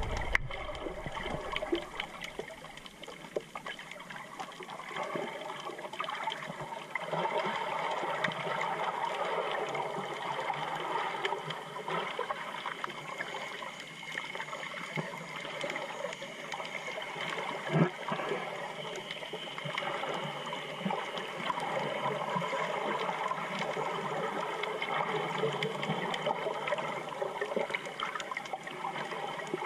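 Underwater sound from a GoPro submerged on a coral reef: a steady wash of moving water with fine, continuous crackling, and a single thump about eighteen seconds in.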